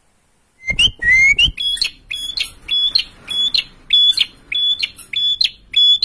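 Male ashy tailorbird (perenjak kepala merah) singing its 'prencek prencek prencek' song: a fast series of short, sharp, high notes, about two or three a second. A short noisy burst comes just before the series starts, about a second in.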